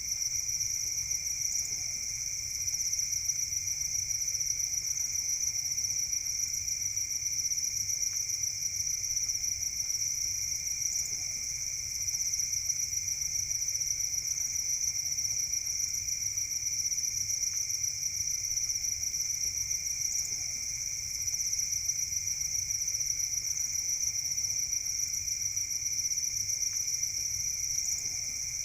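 Chorus of many farmed crickets chirping continuously: a steady, high-pitched trill with no breaks.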